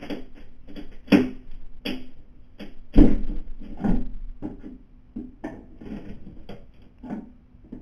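Irregular knocks, clicks and scraping from a house window being forced open from outside with tools, the loudest knock about three seconds in, over a faint steady hum.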